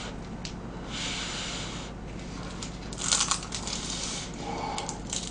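Bites of a giant deep-fried cheese stick filled with sweet potato and cheese: the crispy fried crust crunches, loudest about three seconds in, with a few smaller crunches near the end.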